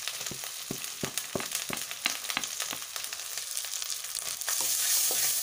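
Onion paste with ginger-garlic and chilli pastes sizzling in hot oil in a pan, with a wooden spatula clicking and scraping against the pan as the masala is stirred. The sizzle gets a little louder near the end.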